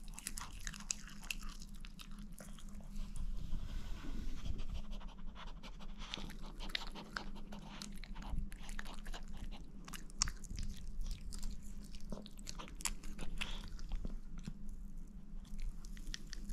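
A chihuahua chewing and crunching on a piece of chicken, a run of irregular wet crackles and bites, over a steady low hum.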